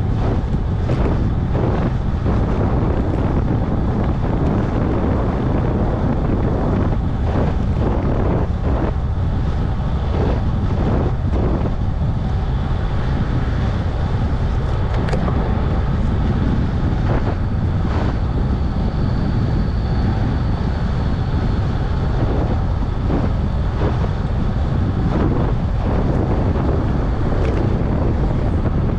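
Wind buffeting the microphone of a camera riding on a moving bicycle: a steady, loud, low rumble, with scattered brief knocks.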